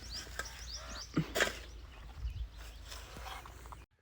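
Small birds chirping in short repeated calls, over a few knocks and rustling handling noise and a low steady rumble. All of it cuts off suddenly near the end.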